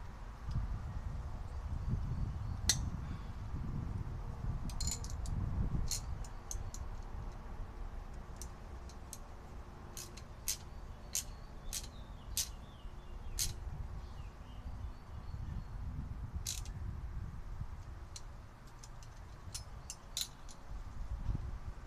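Sharp metallic clicks and clinks, scattered and irregular, as a wrench and small locking pliers (baby Vise-Grips) are handled against a brass air-hose fitting, over a low rumble.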